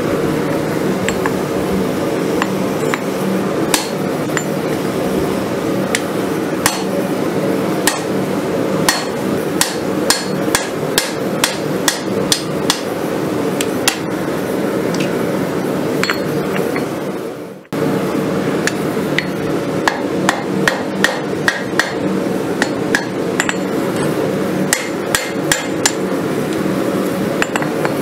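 Hand hammer striking red-hot steel on an anvil, forging a blade from a farrier's rasp: a run of sharp metallic blows, more closely spaced near the end, over a steady hum. The hammering breaks off briefly about two-thirds through, then resumes.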